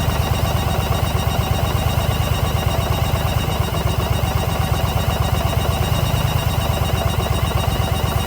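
Yamaha XV950 Bolt's air-cooled V-twin idling steadily with an even, rapid low pulse; the bike has an intake manifold air leak, the cause of its abnormal noise.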